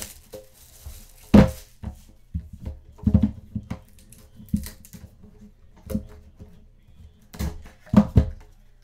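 Knocks and handling noises of a hobby box of football cards being picked up and opened on a table, with the loudest bumps about a second and a half in and twice near the end, over quiet background music.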